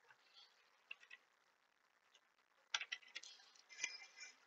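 Faint clicks of a computer keyboard and mouse: a few scattered clicks, then a quick run of clicks near the end.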